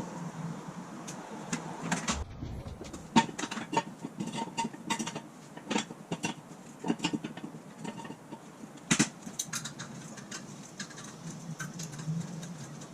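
Irregular clicks, taps and knocks of hand tools and parts being handled, over a low steady hum; the sharpest knocks come about three and nine seconds in.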